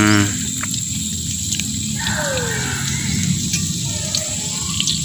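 Chicken livers frying in hot oil in a wok: a steady sizzle with faint small pops.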